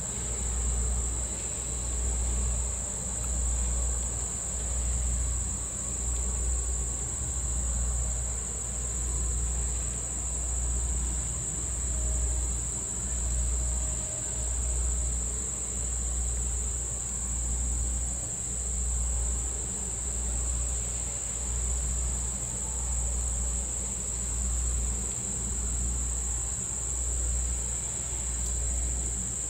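Insects buzzing steadily and high-pitched in summer foliage. Beneath it runs a low, even throb that pulses about once every second and a half.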